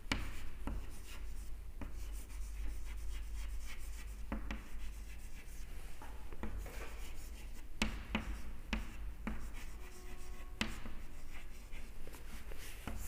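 Chalk writing on a chalkboard: scratchy strokes and scattered taps of the chalk as letters are written, over a low steady hum.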